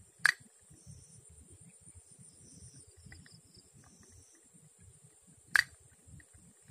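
Insects chirring in a steady high drone. Two sharp, loud clicks cut in, about five seconds apart.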